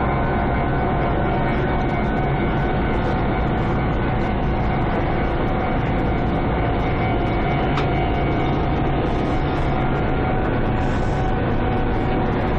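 Meitetsu electric train passing along the track: a steady running noise with several thin steady tones over it, unbroken throughout.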